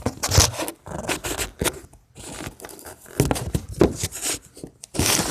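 Handling noise: irregular rustling, crunching and scraping.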